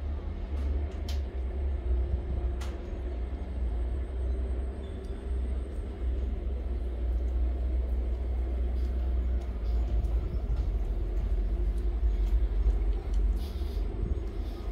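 A steady low rumble with a few faint ticks over it.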